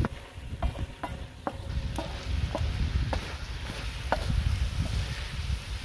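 Chicken pieces sizzling on a large flat iron tawa as a wooden spatula stirs and scrapes them, knocking against the griddle about twice a second. The liquid the chicken released is cooking off.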